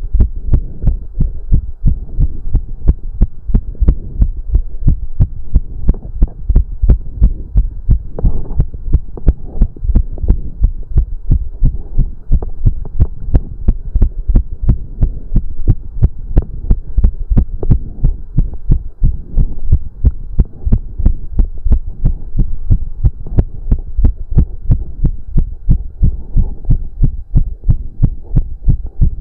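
A man's heartbeat racing during cardio exercise: fast, even low thumps in a quick, steady rhythm.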